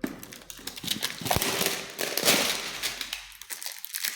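Packaging being handled and opened by hand: a dense run of crinkling, crackling and rustling with many sharp clicks, quieter for a moment near the end.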